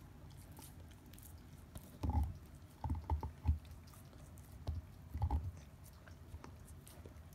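Akita dog gnawing on a deer bone: short clusters of crunching, scraping bites, starting about two seconds in, with pauses between.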